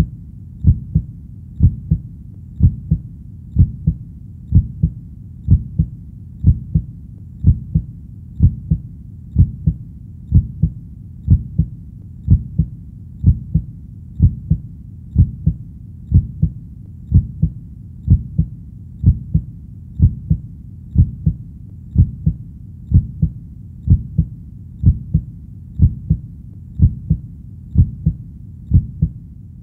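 Heartbeat sound effect: a steady lub-dub double thump, about once a second.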